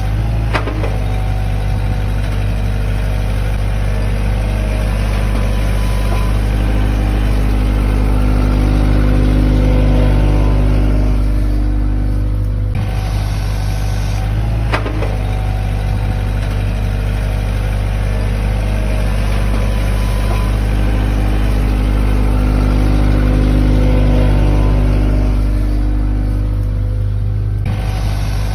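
An excavator's engine runs steadily and rises and falls in pitch twice. The same pattern of sound repeats about every 14 seconds.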